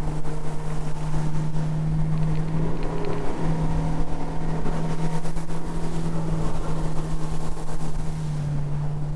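Fishing boat's engine running at high speed, holding a steady pitch, with water rushing and spraying along the hull.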